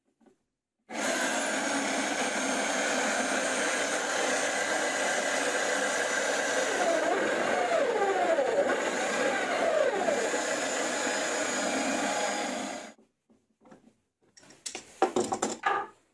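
Electric motor of a homemade router-driven drill press running at high speed while a bit bores a hole into a wooden beam, its pitch sagging and recovering several times as the bit bites into the wood. It starts and stops abruptly; a few knocks and clatter of handling follow near the end.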